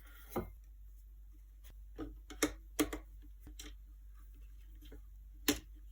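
A handful of light, sharp knocks and clicks, objects being handled on a work surface, over a low steady hum.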